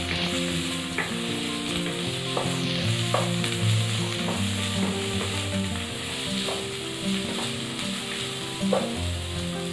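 Diced vegetables sizzling in hot oil in a kadhai while a wooden spatula stirs them, with a few scrapes and knocks of the spatula against the pan. Soft background music with held notes plays underneath.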